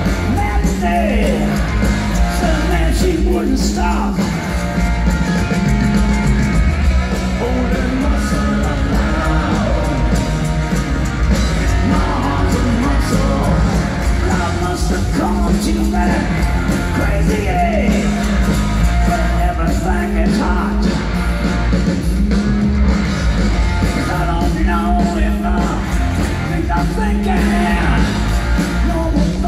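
Live rock band playing loudly, with electric guitars, bass, drums and a lead vocal, heard from the audience through the venue's PA.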